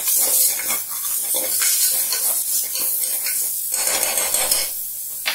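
Metal ladle stirring and scraping in an aluminium pressure cooker, with many short clatters, while spices, cashews and onion sizzle in hot ghee.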